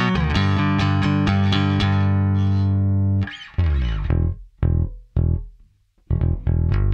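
Fender Player II Precision Bass played through an amp in a punk-style riff: steady, fast repeated picked notes for about three seconds, then the riff stops and a few short separate notes follow with gaps between them.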